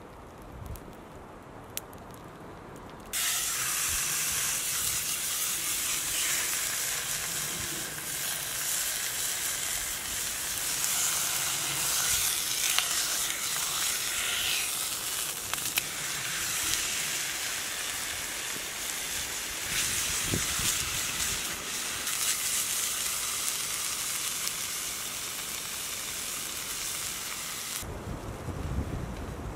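Steak sizzling loudly in a hot frying pan over a burning birch log. The sizzle starts suddenly about three seconds in and stops abruptly near the end, after a quieter low rumble with a few clicks at the start.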